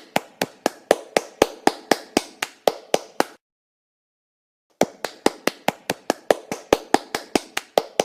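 One-handed clapping: a quick run of sharp claps, about four or five a second. The claps stop about three seconds in and start again after a pause of a second and a half.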